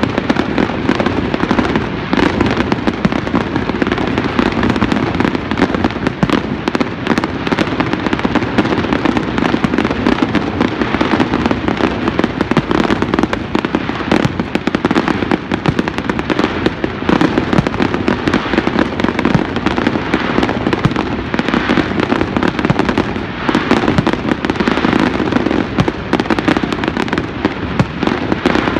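Fireworks exploding in a dense, unbroken barrage: many rapid bangs and crackles overlapping throughout.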